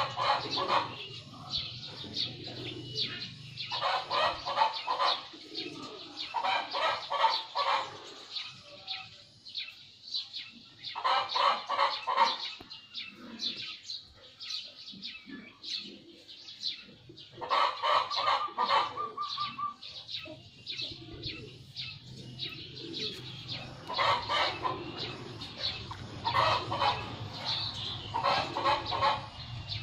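Birds calling nearby in short, rapid chattering bursts every few seconds, one with a held whistled note, over a faint low hum.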